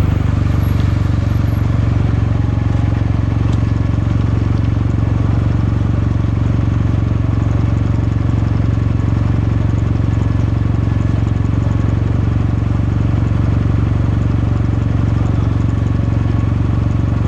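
Exhaust of a Kawasaki Meguro K3's air-cooled parallel-twin engine running at a steady, even pace, with a deep, unchanging beat.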